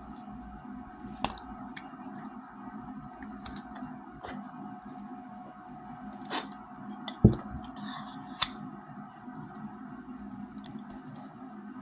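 Eating sounds: wet, squishy mouth noises and scattered clicks as mac and cheese is eaten, with a few sharp knocks. The loudest is a low thump about seven seconds in. A steady hum runs underneath.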